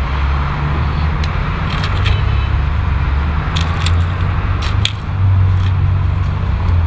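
Go stones clicking sharply on the wooden board and in the stone bowl, a few separate clicks about a second and two seconds in and a tighter cluster around four to five seconds, over a steady low rumble of traffic.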